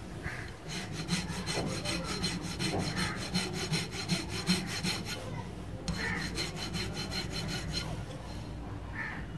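Small hand file rasping the face of a drill's carbon brush in quick, even back-and-forth strokes, with a short pause about five seconds in. The brush face is being filed down where it has worn uneven, so that it seats properly on the commutator again.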